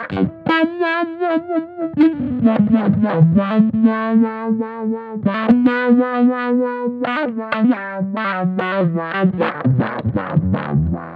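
Electric bass played through a GigFx SubWah filter pedal with distortion, giving a thick, synth-like tone. Held notes waver as the filter sweeps, then a run of quick plucked notes comes near the end.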